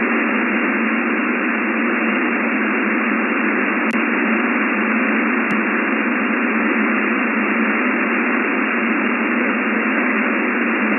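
Shortwave HF receiver on an air-traffic control frequency, giving steady, thin radio static between transmissions with no voice on the channel.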